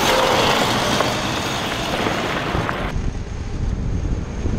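Homemade electric go-kart driving past close by, its tyres and drivetrain giving a steady hiss with hardly any motor sound. About three seconds in the sound changes abruptly to a low wind rumble on the kart's onboard camera as it drives.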